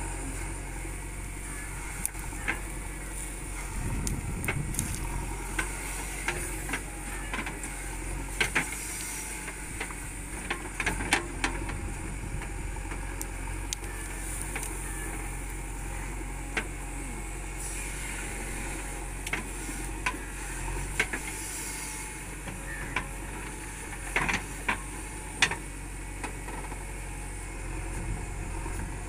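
JCB 3DX backhoe loader's diesel engine running steadily under load while the backhoe digs soil, with frequent short, irregular knocks and clanks from the bucket and arm working.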